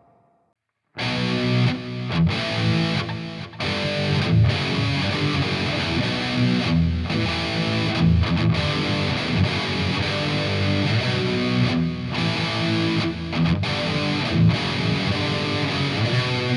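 Electric guitar played through the Playwell Tank-G multi-effects pedal on preset 8D, a distorted tone. The playing starts about a second in.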